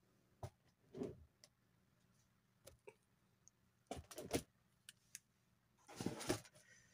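Bagged comic books being handled and swapped: a few brief plastic rustles and taps. The loudest come about four seconds in and again around six seconds.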